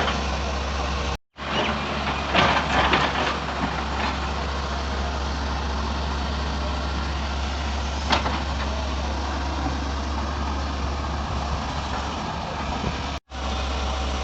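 Excavator's diesel engine running steadily with a deep, even drone. Short, louder noises come about two to three seconds in, and a sharp one about eight seconds in. The sound cuts out for a moment twice.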